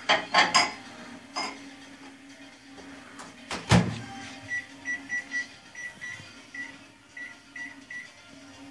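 A few sharp clicks and then a louder knock as a cat paws at a plastic fidget spinner, followed by a string of about a dozen short high beeps. A steady low hum runs underneath.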